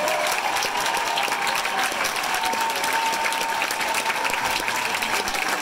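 Audience applauding at an opera curtain call: dense, steady clapping with no break.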